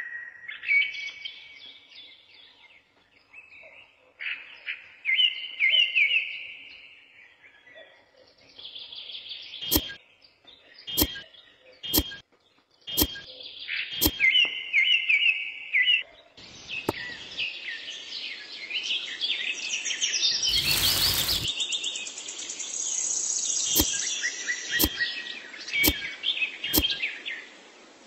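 Small birds chirping and warbling in quick, repeated phrases. Two runs of sharp clicks about once a second cut through the song, and a short noisy burst comes about two-thirds of the way in.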